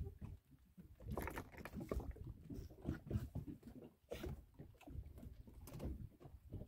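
Fishing line hauled in hand over hand over the side of a wooden boat: irregular scuffs, swishes and light knocks as the line drags over the gunwale and drops into the hull.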